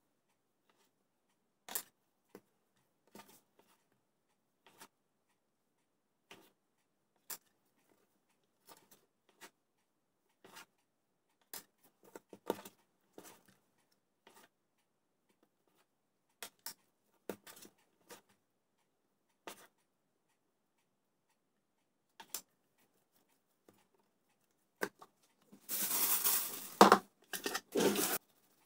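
Scattered light taps and scrapes of a plastic bench scraper cutting bun dough on a worktop, with dough pieces set down on a kitchen scale. Near the end comes a louder burst of rustling handling noise lasting a couple of seconds.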